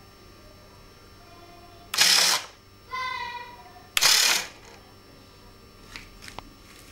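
Retractable cannon mechanism of an Airwolf 550 scale RC helicopter working: two short bursts of hiss about two seconds apart, with a brief mechanical whine between them and a few light clicks near the end.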